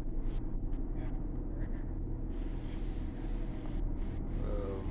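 A steady low mechanical hum and rumble. A hiss comes in about halfway through, and a brief pitched sound rises and falls near the end.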